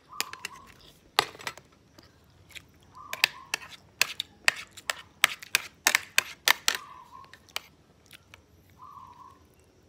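A quick, irregular run of sharp clicks and crackles close to the microphone, from a hand and spoon working at a plate of rice and dried fish, thinning out after about seven seconds. A few short, faint squeaks are mixed in.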